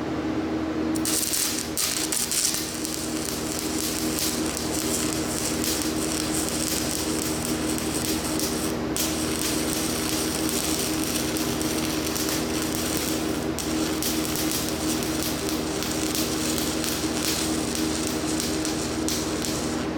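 Stick welding on cast iron with a Certanium 889 rod: the arc's steady crackling sizzle starts about a second in and breaks off briefly twice, over a steady hum.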